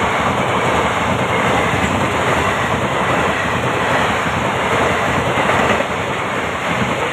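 Intercity Express train passing the level crossing at speed, a steady loud rush of noise that eases slightly about six seconds in.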